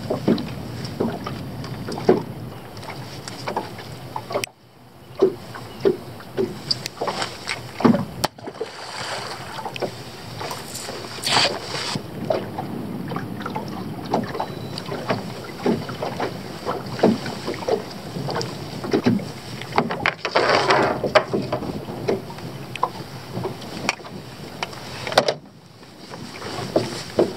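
Wind buffeting the microphone over water lapping against a small fishing boat's hull, with scattered knocks and clatters of someone moving and handling gear on the deck.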